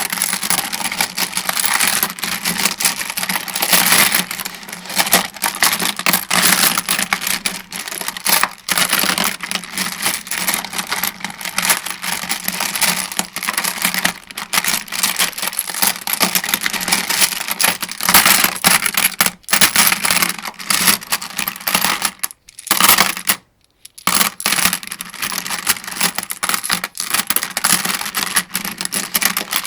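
Dense, continuous metallic clinking and clicking of rifle cartridges being loaded one by one into an AK-47 75-round drum magazine, with a couple of brief breaks a little past the middle.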